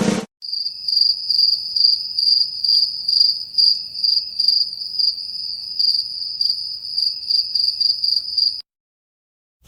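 Cricket chirping sound effect, the classic 'awkward silence' meme: a high, steady chirping that pulses about twice a second, then cuts off suddenly near the end.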